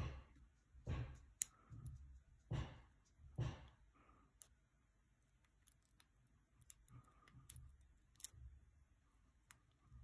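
Lock pick and tension wrench working the pin tumblers of a cheap padlock, picked one pin at a time: scattered faint, sharp metallic clicks, bunched in the second half. A few louder soft whooshes come in the first four seconds.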